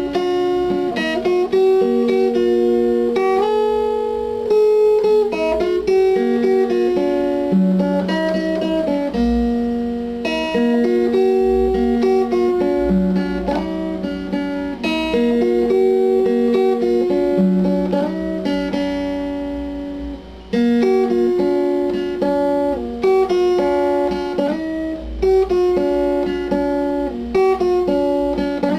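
Instrumental music led by guitar, plucked and strummed notes in a continuous melody, with a brief break about two-thirds of the way through.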